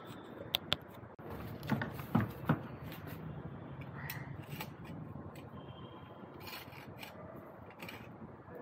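Sharp metallic clicks and clinks of a jigsaw's steel edge-guide rod being fitted and adjusted in the saw's base plate, with the saw switched off. There are two quick clicks under a second in, a louder cluster about two seconds in, and lighter handling clicks after that.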